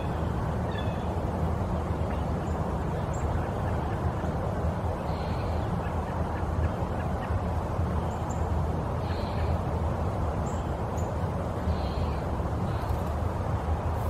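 Steady low outdoor rumble with short bird calls every few seconds.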